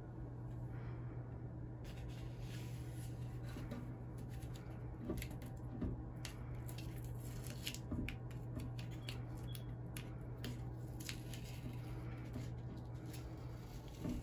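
Blue painter's tape being peeled off the border of a painting on paper, giving a run of small crackles and ticks over a low steady hum.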